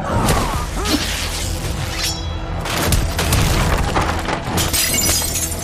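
Action-film fight soundtrack: dramatic background music over a rapid series of hits and crashes, with a dense burst of crashing about two seconds in and more near the end.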